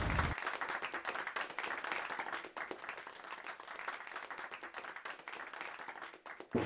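Applause: many hands clapping in a dense patter, which cuts off suddenly near the end.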